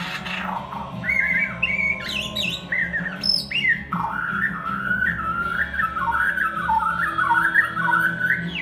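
White-crowned shama singing: varied clear whistled phrases that slide up and down, then a fast run of short warbled notes from about four seconds in.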